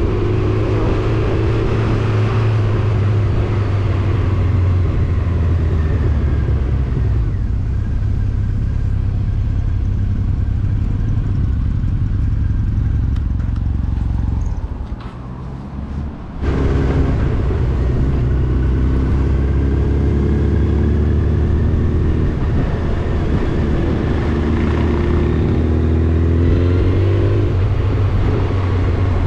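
Motorcycle engine running at a steady road speed under a constant rushing noise. Just past halfway it goes quieter for about two seconds, then comes back abruptly. Near the end the engine note rises as the bike accelerates, then drops.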